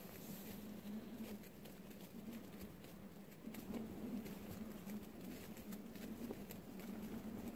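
Wind buffeting a tent at night: the fabric gives irregular faint ticks and taps over a low steady hum.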